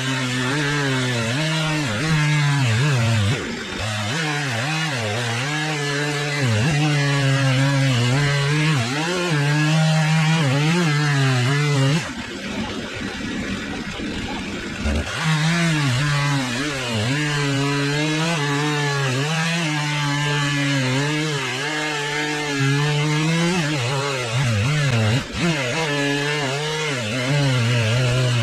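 Stihl 661 two-stroke chainsaw with a 36-inch bar, run on an Alaskan chainsaw mill, working under load as it rips a slab along a log. The engine note wavers with the load. About twelve seconds in, the engine note drops away for about three seconds, then comes back at the same pitch.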